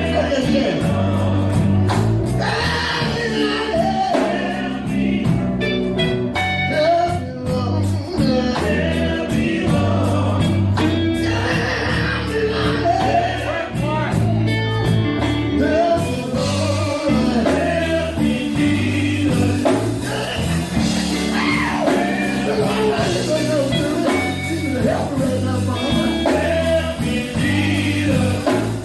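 Gospel song: voices singing over a band with a pulsing bass line and rhythmic percussion, the percussion densest in the first half.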